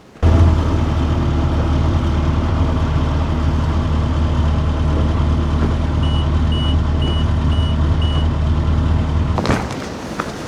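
Excavator's diesel engine running steadily at working revs, starting and stopping abruptly. About six seconds in, five short, evenly spaced high beeps of its warning alarm sound over it.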